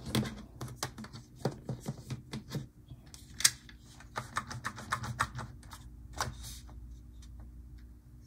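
Clicks and taps of a hand handling a plastic Roco ICE2 HO-scale model train and nudging it on the track, the loudest about three and a half seconds in. Under them is a faint steady hum from the model's motor, which runs without driving the train; the owner puts the stall down to stiction.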